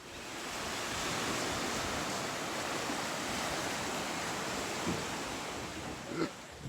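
Steady wash of sea waves on the shore, fading in at the start and cut off abruptly at the end, with two faint brief sounds near the end.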